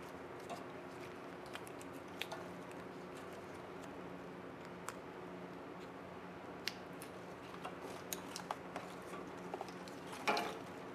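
Faint scattered clicks and light rubbing of gloved hands fitting flat ribbon cables into the ports of a 4720 print head, over a steady low hum. A brief louder rustle comes near the end.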